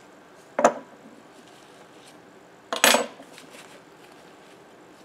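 Hard objects knocking and clattering twice, about two seconds apart: a short sharp knock a little over half a second in, and a longer, rattling double knock near the middle.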